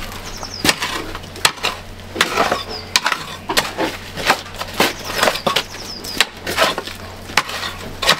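A metal spade chopping and scraping into stony soil: irregular sharp crunching strikes, about two a second, with a steady low hum underneath.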